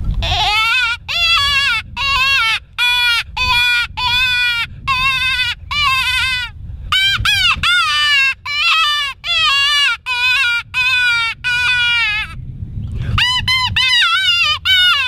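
Mouth-blown predator call cupped in the hands, imitating a dying rabbit's distress cry. It gives a string of high-pitched, wavering wails, each bending up and down in pitch, about fifteen in a row. A short pause comes near the end, then a quicker run of cries.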